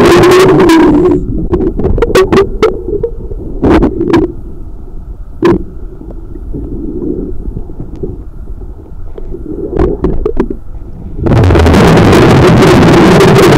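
Muffled underwater noise picked up by a submerged camera: a loud rushing at the start, then a low rumble with scattered sharp knocks and clicks, and the loud rushing comes back about eleven seconds in.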